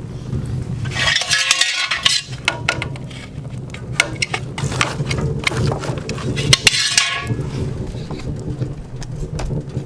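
Wood stove fire burning with a low steady roar, over repeated metal clinks and clanks. Two louder rushing bursts come about a second in and again near seven seconds.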